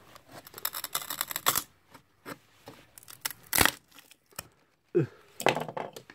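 Pocket-knife saw blade rasping through thin plywood in short, quick strokes, with a single sharp crack of wood about three and a half seconds in.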